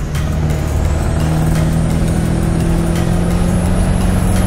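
Ford 7.3 IDI diesel V8 in a 1986 F250 running steadily under way, heard from inside the cab. A thin high whine climbs slowly over the engine drone.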